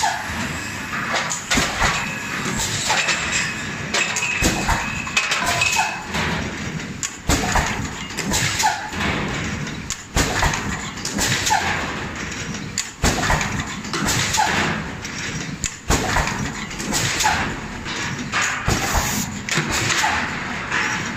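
Automatic two-cavity PET bottle blow molding machine running: repeated sharp clacks and knocks from its moving parts over a steady hiss of air.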